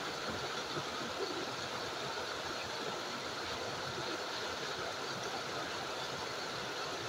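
Creek water running steadily down a small cascade and over a sloping rock slab, an even, unbroken rush of water.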